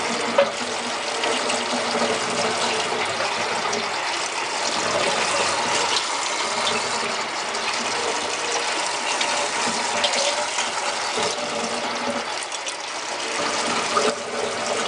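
Kitchen faucet running a steady stream of water onto a heated metal engine part in a stainless steel sink, quenching it, with a few light clinks of the part against the sink.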